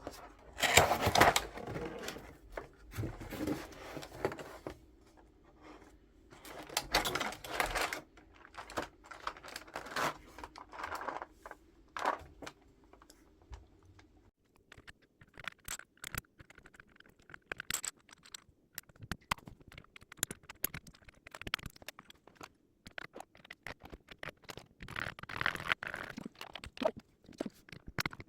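Hands handling mechanical keyboard parts and their packaging: rustling, tearing and scraping for the first dozen seconds, then a long run of small sharp plastic clicks and taps.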